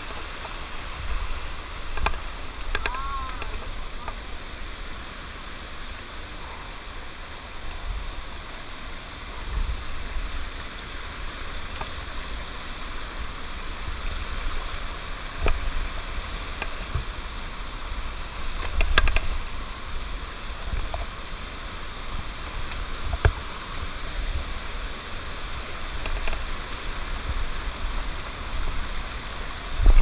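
Small mountain stream rushing and splashing over rocks in a steady hiss, with a few low thumps along the way.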